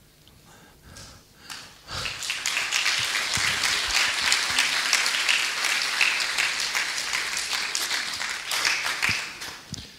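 Audience applause: a few scattered claps, then the whole room clapping from about two seconds in, dying away near the end.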